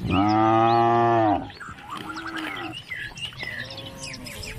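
Calf mooing: one loud, long moo lasting over a second, followed by two shorter, fainter calls. Birds chirp in the background.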